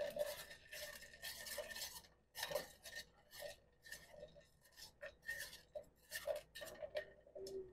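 Metal spoon stirring hard, still-solid beeswax pellets in a small stainless steel pot, scraping and clinking against the pot's bottom and sides in quick, irregular strokes, with a faint ringing from the pot.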